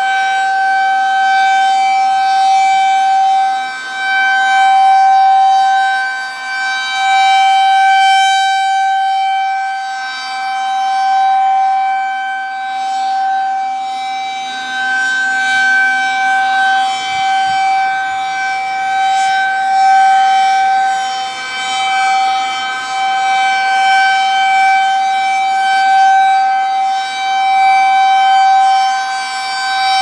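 Federal Signal 2001-SRNB rotating electromechanical outdoor warning siren sounding a steady single-pitch tone, the Full Alert signal. Its loudness swells and fades every few seconds as the horn rotates toward and away from the listener.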